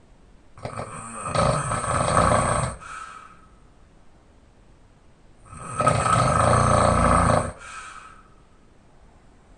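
Loud open-mouthed snoring of a person lying on their back: two long snores about five seconds apart, each followed by a brief, softer sound.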